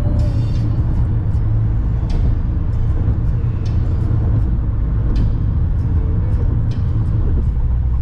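Steady low road and engine rumble of a car driving at highway speed, heard from inside the cabin, with scattered light clicks every second or so.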